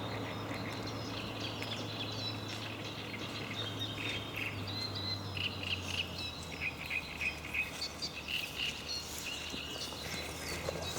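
Birds chirping and singing, many short overlapping calls that grow busier in the second half, over a steady low hum.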